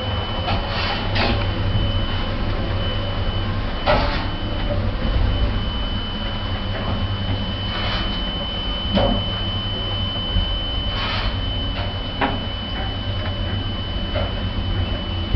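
Passenger lift car travelling between floors, with a steady low rumble and a constant high-pitched whine. Occasional clicks and knocks from the car come a few seconds apart.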